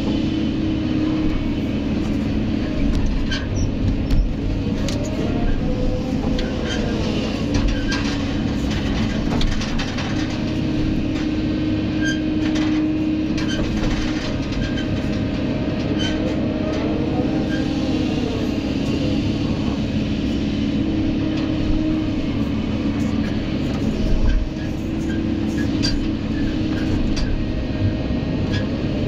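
Kobelco SK200 excavator's diesel engine and hydraulics heard from inside the cab, running steadily under load through a dig-swing-dump cycle loading a dump truck. A whine rises and falls a few times, with scattered knocks and clanks.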